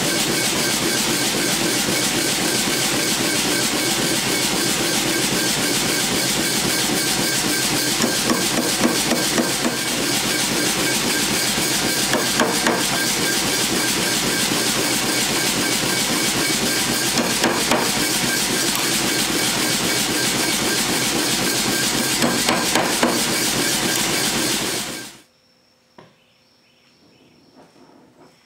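Hammer blows on a handled top tool forging red-hot steel petals on an anvil block, in clusters of quick strikes, over a loud steady hiss. The hiss cuts off abruptly about 25 seconds in, leaving near quiet with a single click.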